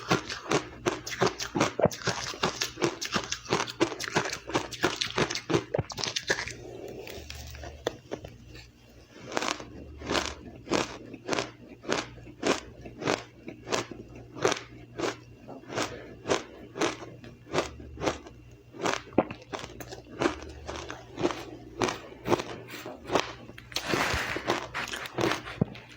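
Close-miked chewing of crushed, powdery ice. Dense crunching for the first six seconds is followed by a short lull, then steady crunching bites about two a second, and dense crunching returns near the end.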